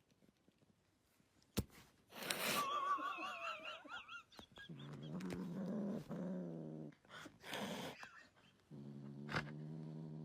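A cat vocalising: a short wavering higher call about two seconds in, then long, low, steady drawn-out calls broken by two short noisy bursts, the last low call still going at the end.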